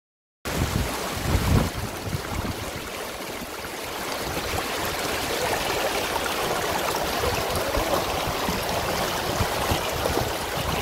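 Whitewater river rapids rushing steadily, starting abruptly about half a second in.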